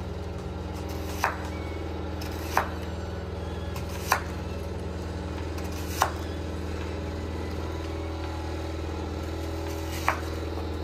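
Knife cutting onion on a cutting board: five separate sharp knocks, one every second or two, over a steady low hum.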